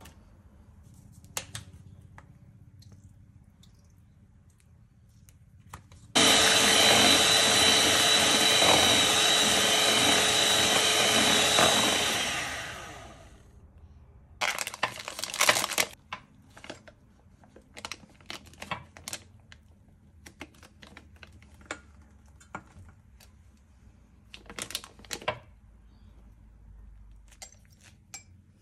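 Electric hand mixer whipping cream in a stainless steel bowl: it switches on abruptly about six seconds in, runs steadily for about six seconds, then winds down. After it, a quick cluster of knocks and then scattered small clicks and taps.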